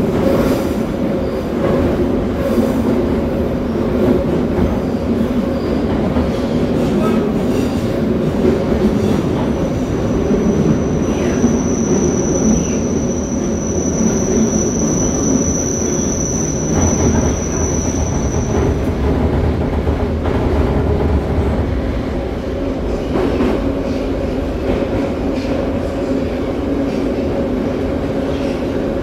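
Moscow metro train running through a tunnel, heard from inside the car: a steady rumble of wheels on rails and traction motors. About ten seconds in, a high, steady wheel squeal sets in and lasts roughly nine seconds.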